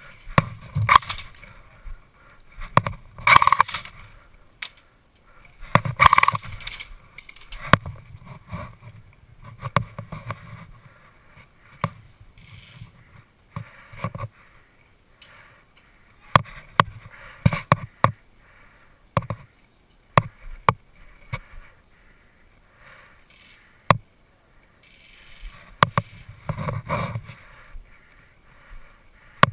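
Irregular rustling and scraping of an airsoft player moving through brush, with scattered sharp clicks and snaps throughout.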